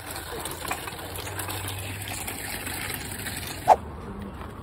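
A wagon's wheels rolling over a gravel lot under a steady low hum like an idling engine. About three and a half seconds in there is a short, loud, high squeak.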